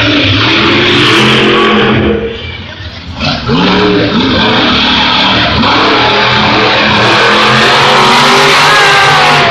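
Monster truck engines revving hard, the pitch climbing and falling as the trucks drive across the dirt. The engine noise drops for a moment about two seconds in, then comes back loud about a second later.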